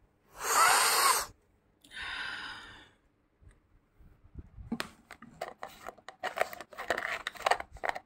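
Two rushing scrapes in the first few seconds, the first loud and the second softer, then a quick run of crisp crackling and crunching from crushed naphthalene mothball crystals handled in a plastic tub.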